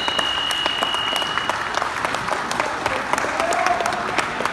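Crowd applauding and clapping at the end of a wrestling match. A steady high electronic tone, likely the scoreboard buzzer, carries on at the start and stops about two seconds in.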